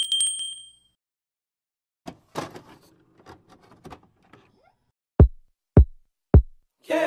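Edited intro sound effects: a bright bell-like notification chime rings out and fades in the first second, then quiet crackly glitch clicks, then three short deep hits falling in pitch about half a second apart, just before music starts.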